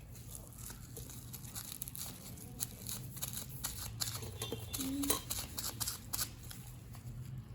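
Plastic bubble wrap crinkling and rustling as it is handled and pressed onto paper, with scattered small clicks and taps.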